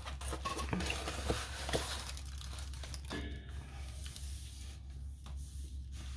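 Plastic cover film on a diamond-painting canvas crinkling and rustling as hands unroll it and smooth it flat. The crackling is busiest in the first three seconds, then thins out.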